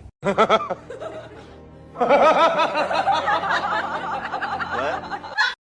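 Music with laughter: a short burst near the start, then a longer stretch of laughing from about two seconds in that stops abruptly near the end.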